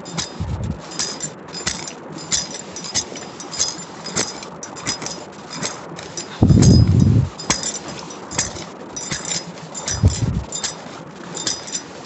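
Metal hand digger scraping and clinking through stony soil in quick, irregular strokes, digging out a metal-detector target. A few dull thuds break in, the loudest and longest about six and a half seconds in.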